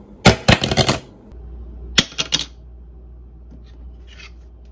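Metal American Express Gold card dropped onto a hard surface, clattering in a quick run of clinks and bounces, then three lighter clinks about two seconds in.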